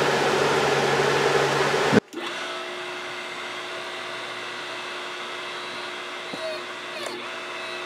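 Hydraulic press pump motor running with a steady drone as the press ram closes down onto the impression die. About two seconds in it cuts off abruptly and gives way to a quieter steady hum with faint gliding whines.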